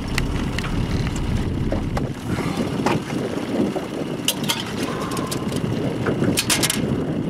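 Wind rumbling on the microphone, easing about two seconds in, then sharp knocks and clicks in an aluminum boat as a netted rainbow trout is handled, in a cluster around the middle and another near the end.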